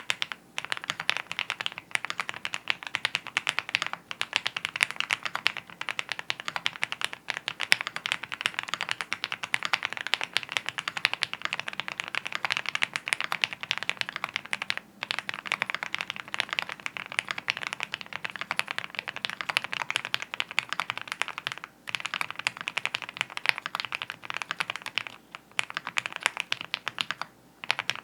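Continuous fast typing on a Wuque Studio Mammoth75 aluminium custom mechanical keyboard fitted with lubed, filmed Gateron Black Ink V2 linear switches and GMK keycaps: a dense stream of keystrokes, broken by a few brief pauses, the first about halfway through and the rest in the last quarter.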